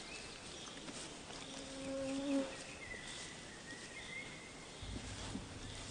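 Quiet outdoor nature ambience with a steady hiss and faint high bird calls, and one short, steady animal call about a second and a half in.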